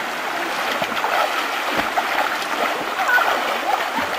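River water flowing and lapping, with a swimmer splashing through it.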